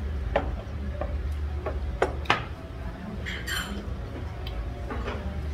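A long wooden sushi board knocking and clacking against a table as it is set down, several sharp knocks in the first two and a half seconds, then a short rustle, over a steady low hum.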